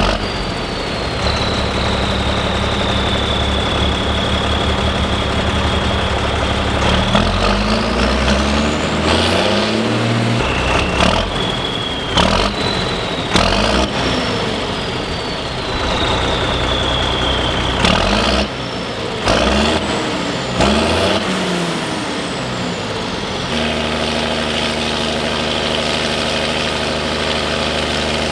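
Fendt Favorit 824's turbocharged six-cylinder diesel running at high revs with a high turbo whistle that slowly sags, then revving up and down several times with the whistle rising and falling, before dropping to a steady idle about two thirds of the way through. A few short sharp knocks come during the revving.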